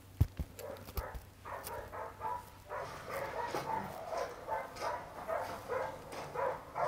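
A hunting dog yelping and barking in quick repeated bursts, two to three a second, from the shooting simulator's film played through the room's speakers; two sharp knocks come about a second apart just before.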